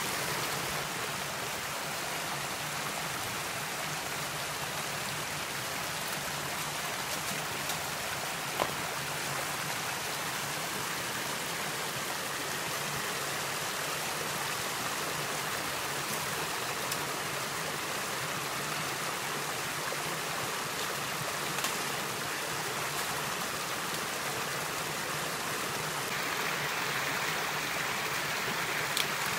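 A shallow rocky creek running over a small cascade: a steady rush of splashing water, with a few brief sharp ticks.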